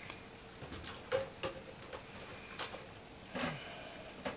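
Maine Coon kittens squirming and nursing on a cloth sheet: faint, scattered soft clicks and rustles, with one sharper click about two and a half seconds in.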